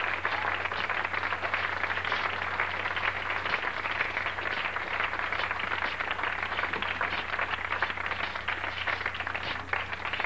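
Audience applauding steadily, a dense crackle of many hands clapping, over a steady low hum.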